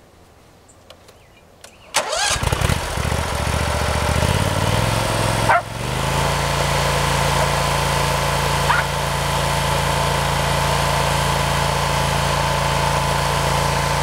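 Walk-behind trencher's gas engine starts suddenly about two seconds in. It climbs in speed in steps over the next few seconds, then runs steadily.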